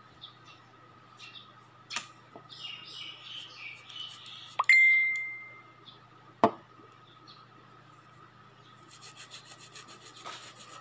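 Small metal nail tools worked on fingernails to clear softened nail polish: brief scraping, then a sharp metallic clink that rings for about a second as a tool strikes something hard, a single knock, and near the end a run of quick, even scraping strokes.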